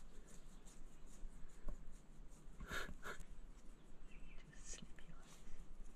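Faint rustling of a hand stroking and rubbing a spotted hyena's fur, with a few short scratchy strokes near the middle.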